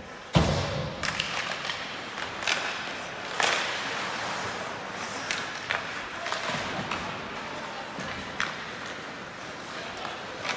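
Ice hockey play: a heavy thud about half a second in, then sharp clacks and knocks of sticks and puck every second or so over steady arena noise.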